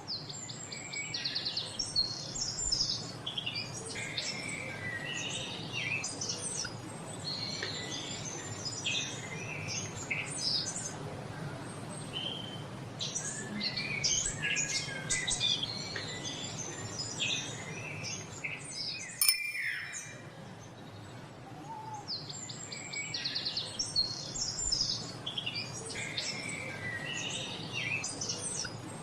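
A chorus of many songbirds chirping and singing at once, with overlapping short calls and trills. About two-thirds of the way through there is one brief sharp click.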